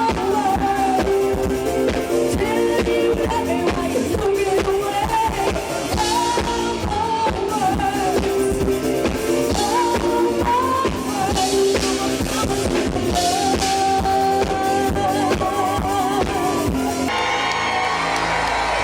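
Live band performing a song: a lead singer over drum kit, bass and guitar. The drums drop out near the end.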